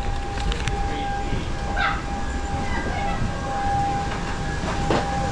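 Steady low rumble with a constant high-pitched whine, the air-conditioning and machinery noise around a parked airliner during boarding, with a single knock near the end.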